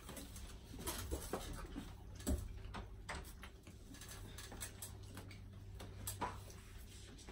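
Close eating sounds: chewing, lip smacks and scattered small clicks as fried chicken is picked apart by hand, over a low steady hum.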